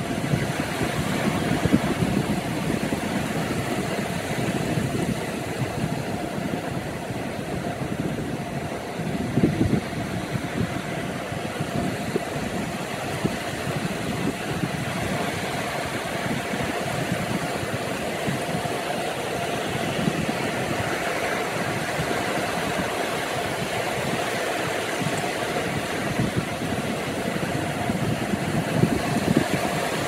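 Small Atlantic waves breaking and washing in over a shallow beach: a steady rushing surf, with heavier surges as a wave breaks a few times, once near the start, once about nine seconds in and once near the end.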